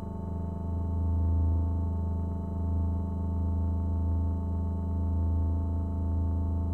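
A steady low electronic drone from an Emona TIMS trainer module, run through a germanium-transistor Darlington Harmonic Percolator fuzz pedal that is switched on. The clipping adds a dense stack of overtones above the low fundamental, and the level swells and eases gently.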